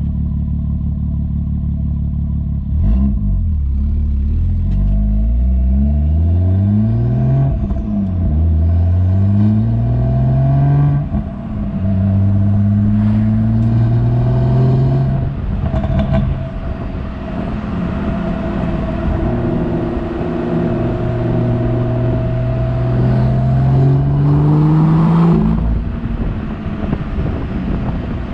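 A BMW M140i's turbocharged 3.0-litre straight-six, fitted with an Akrapovic downpipe and Ego X exhaust, pulling through the gears. It runs steadily at first, then makes several rising runs in pitch broken by gear changes. The last is a long, slow climb that drops away near the end.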